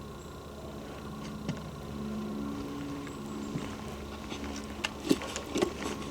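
Footsteps and handling of a handheld camera on a woodland walk: a steady faint hum, then several sharp knocks and clicks in the last second or so.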